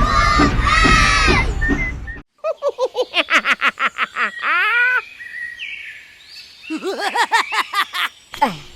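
Background music that cuts off suddenly about two seconds in, followed by a quick run of high chirping calls, a falling glide, and more chirps near the end.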